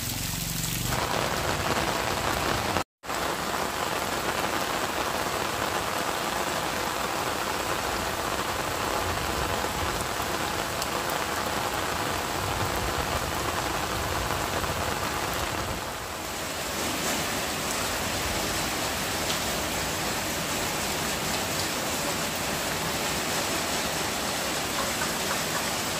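Heavy rain falling steadily on foliage, grass and the ground, a dense even hiss that cuts out for an instant about three seconds in.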